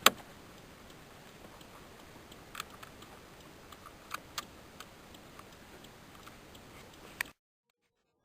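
Scattered clicks and taps of steering-column parts being handled and fitted back together, with a sharp click at the start the loudest; the sound cuts off abruptly to silence about seven seconds in.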